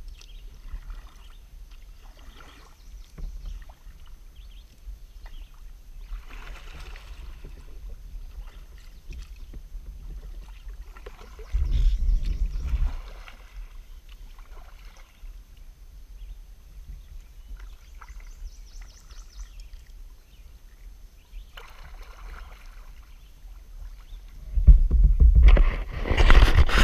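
Kayak paddle blades dipping and swishing through slow creek water every few seconds over a steady low rumble. Near the end come loud rubbing and knocking noises as the bow-mounted camera is handled and turned.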